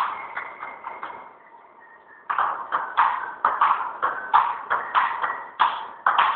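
Table tennis ball clicking off paddles and the table in a rally. The clicks fade out in the first second, pause briefly, then come back as a quick run of hits from about two seconds in.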